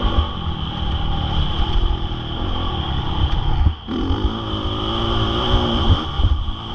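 Honda CRF450R's single-cylinder four-stroke engine running under throttle on a motocross track. The sound drops off sharply for a moment a little under four seconds in as the throttle is shut, then picks up again with a rising pitch.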